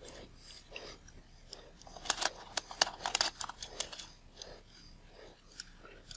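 Small sharp clicks and scrapes of metal lens parts being handled and worked during disassembly of a Micro-Nikkor 55mm f/2.8 lens, with a quick flurry of clicks about two seconds in and softer scuffing around it.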